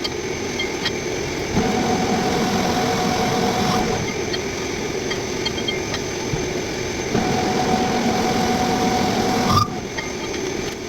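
Metal lathe running and cutting steel on a large roller, a steady mechanical drone with a faint steady tone that drops in and out. The sound changes abruptly a few times, as at cuts in the recording.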